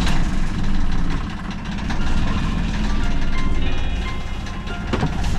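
Sailing yacht's inboard engine running steadily just after being started, a loud, even low rumble. Background music fades in about halfway through.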